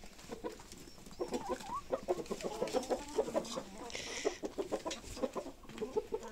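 Chickens clucking: many short, overlapping clucks from several hens, getting busier about a second in.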